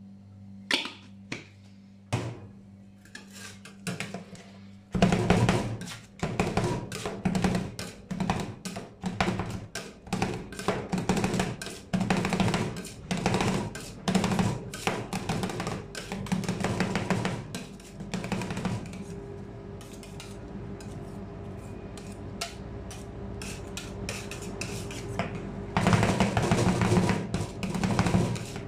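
Two metal spatulas rapidly chopping and tapping on a stainless-steel ice cream roll cold plate, mixing cream with Nutella. The fast clatter starts about five seconds in, thins out for several seconds, then picks up again near the end, over a steady low hum.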